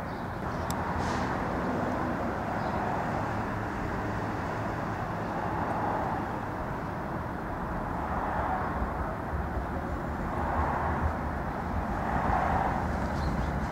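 Steady outdoor rumble of road traffic, with the low rumble of an approaching NJ Transit commuter train building in the second half.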